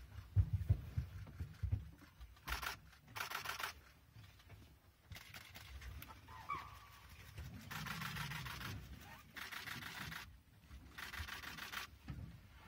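Bursts of rustling handling noise on a handheld phone's microphone over a low rumble, with one short falling chirp about six and a half seconds in.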